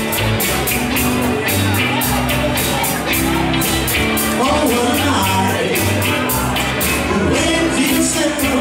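Live rock and roll band playing: electric guitars, electric bass and a drum kit keep a steady beat of about four strokes a second, with a man singing over them.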